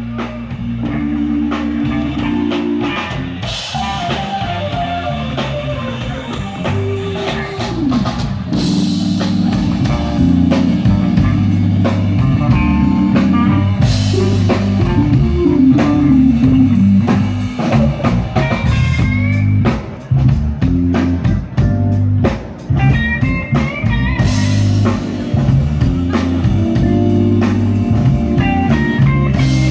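Electric blues band playing live: a guitar lead over bass and drum kit in the instrumental opening of a slow blues, with cymbal crashes every few seconds.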